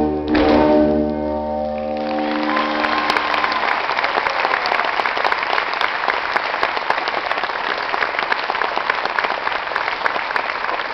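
Music ends on a long held final chord that dies away over the first couple of seconds, and audience applause swells in and carries on steadily.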